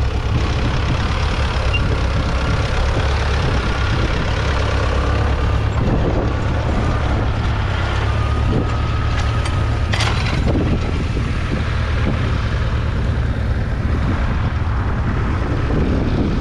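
International Harvester B250's 2.4-litre four-cylinder diesel engine running steadily under load, pulling a two-furrow trailed plough through the soil. A single sharp crack comes about ten seconds in.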